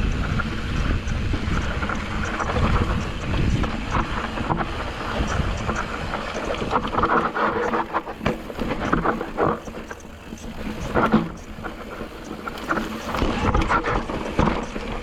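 YT Decoy mountain bike riding down a rocky trail: tyres crunching over rock, with irregular knocks and rattles from the bike, and wind rushing over the microphone.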